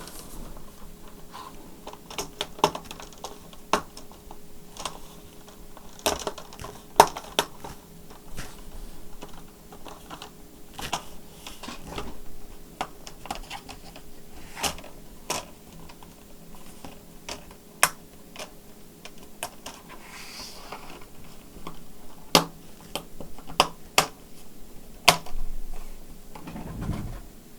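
Irregular clicks and taps of a laptop's plastic case parts being handled and pressed into place, over a faint steady hum.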